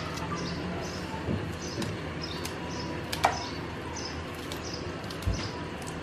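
Green chili being sliced by hand with a kitchen knife over a bowl, with no board: scattered small clicks of the blade, the sharpest about three seconds in. A bird chirps over and over, faint and high, in the background.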